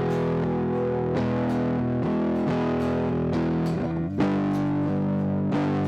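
Guitar music: chords picked in a steady, even rhythm, with no singing.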